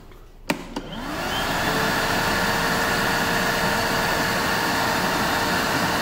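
Makita VC004GL 40 V max XGT cordless vacuum cleaner with a brushless motor, switched on at its dial with a click about half a second in. The motor spins up with a rising whine over about a second and a half, then runs steadily with a loud, even rush of air.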